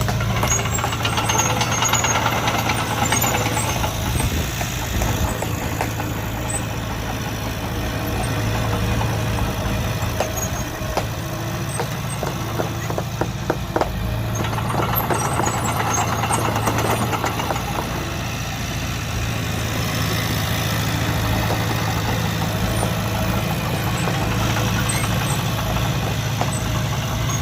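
Heavy diesel earthmoving machinery running steadily, its engine working harder twice. A few sharp knocks come about halfway through.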